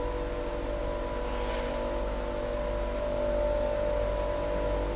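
Steady machinery hum from a powered-up vertical machining center: several held tones over a low drone, unchanging throughout.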